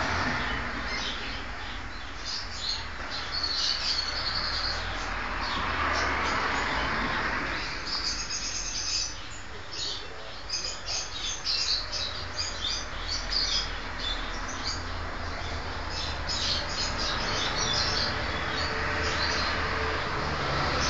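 Many short, high chirps and tweets, on and off throughout, over a steady low hum.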